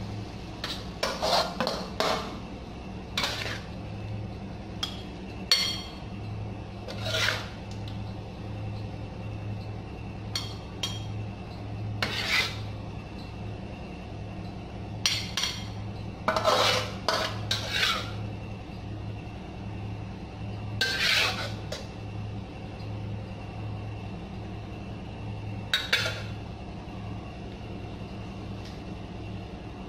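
Metal ladle clanking and scraping against a steel wok and a glass serving plate as food is scooped out, in irregular clatters, over a low steady hum.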